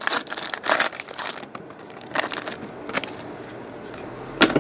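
Foil wrapper of a 2012-13 SP Authentic basketball card pack crinkling and tearing as it is pulled open, loudest in the first second and a half, then quieter rustles and one sharp click near the end.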